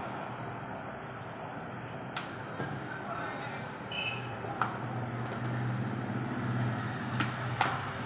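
Several sharp clicks and snaps as a metal pry tool works along the seam of a Samsung Galaxy M01s's plastic back cover, levering it away from the frame, the loudest two near the end. A steady background rumble runs underneath.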